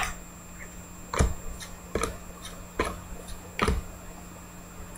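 Football trading cards being flicked through one at a time, each card slid off the stack with a sharp snap: four clear snaps a little under a second apart, with fainter ticks between.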